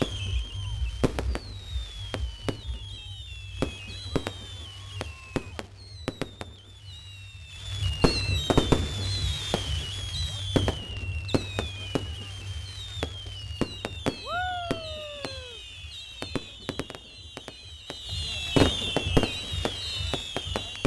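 Fireworks display: a steady run of sharp bangs and crackles, with many high whistles falling in pitch overlapping throughout, and louder clusters of bangs about eight seconds in and near the end.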